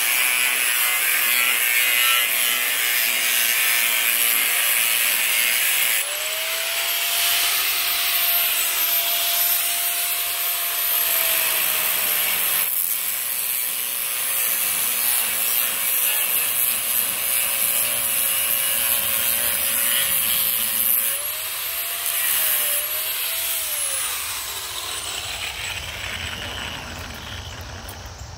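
Corded angle grinder with a cut-off wheel cutting into a steel safe's top: a harsh, steady grinding hiss. A few seconds in, the motor's whine comes through plainly. Near the end the whine falls as the grinder is switched off and winds down.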